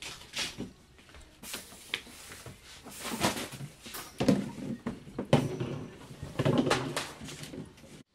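A black mesh office chair being carried and set down: irregular knocks, bumps and rustling, with the loudest knocks about four and five seconds in.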